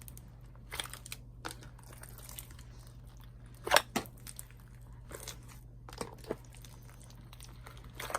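A hand mixing and squeezing a big mass of slime in a bin, giving scattered squelching, crackling pops, the loudest a little under four seconds in. A steady low hum runs underneath.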